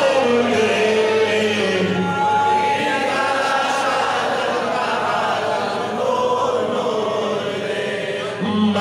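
Unaccompanied Pashto naat chanted by a male voice, melodic and continuous, with long drawn-out notes that glide up and down.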